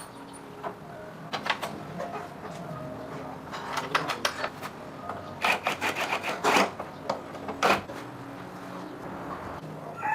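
Irregular sharp clicks and clinks of hand tools and small parts being handled, with a quick run of louder clatters about five and a half to seven seconds in.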